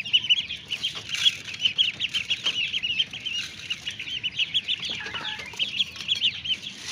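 A brood of hungry ducklings peeping rapidly and continuously, many high calls a second, as they crowd around a feeder being filled.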